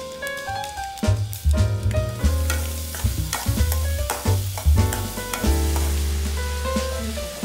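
Chopped onions sizzling in hot oil in a metal kadai as a metal slotted spoon stirs them, the sizzle setting in about two seconds in. Background music with a heavy bass line plays throughout.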